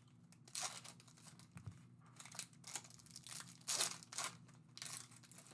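Plastic wrapping on a box of trading card packs crinkling and tearing in short, irregular bursts as the box is opened.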